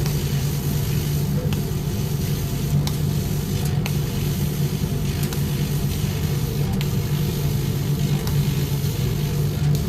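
100-watt CNC laser cutter running while cutting: a steady low hum under an even hiss, with a few faint ticks.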